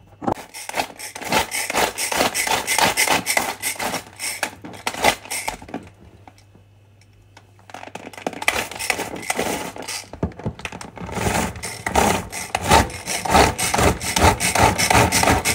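Hand-pull cord food chopper worked in quick repeated pulls, its blades whirring and rattling through garlic, chili and onion in the plastic bowl. It stops for about two seconds midway, then starts again and is loudest near the end.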